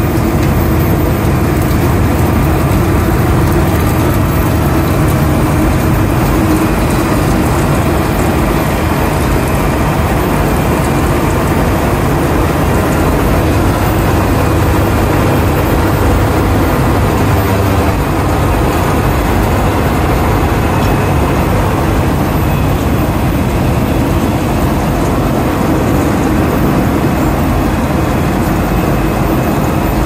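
Heavy diesel road-construction machinery running steadily: a loud, deep engine drone under a dense, unbroken noise.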